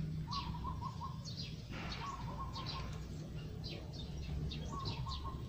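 Small birds chirping in the background: many short, high, downward-sliding chirps, with a few brief warbling notes lower down, over a low steady hum.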